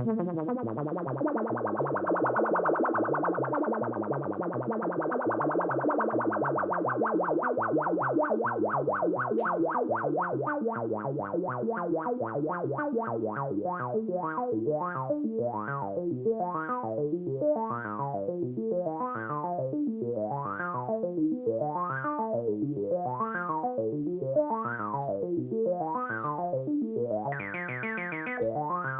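Behringer Crave analog synthesizer playing a fast sequenced pattern of repeated notes. In the second half the tone swells brighter and darker about every second and a half as LFO modulation sweeps it. It turns brighter again near the end.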